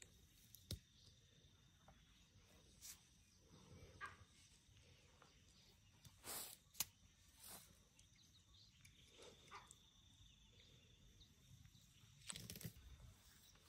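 Faint rustling and soft thuds from a young African elephant calf grazing and stepping through grass close by, with a few louder rustles about six and a half and twelve and a half seconds in. A faint steady high tone sits underneath.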